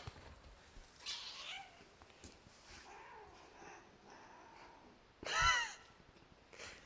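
A domestic cat meowing once about five seconds in: a single short call that rises and then falls in pitch.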